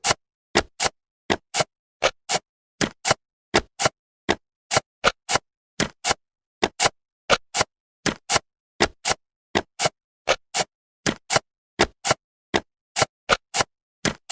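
Dry, clock-like ticking sound effect: short sharp clicks in an uneven tick-tock rhythm, about five every two seconds, with dead silence between them.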